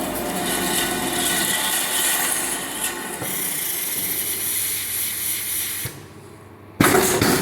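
Machine in a saw-blade workshop running with a steady hissing noise. It drops away about six seconds in, followed about a second later by a sudden loud burst of noise.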